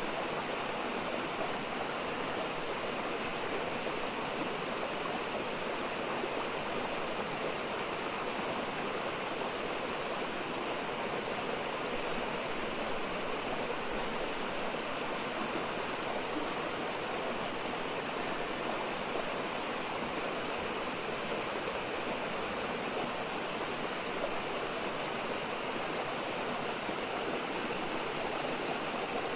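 Mountain valley stream flowing, a steady, even rush of water.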